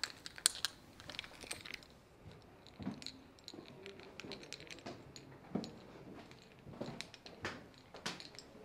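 Faint footsteps with scattered small clicks and clinks, irregular taps from someone walking along hallways and down stairs while carrying a bag.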